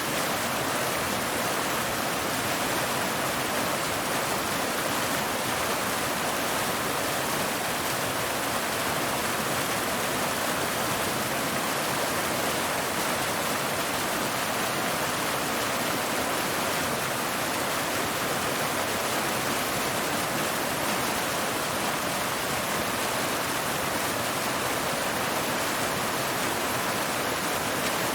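Waterfall: water pouring steadily over rocks, a constant rushing hiss without pauses.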